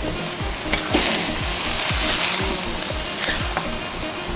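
Ground meat sizzling as it is stir-fried in a nonstick wok, with a plastic spatula scraping and tapping the pan several times. Background music with a steady beat underneath.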